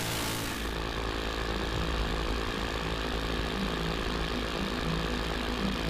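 Aircraft engine running steadily, a continuous even noise with several held tones.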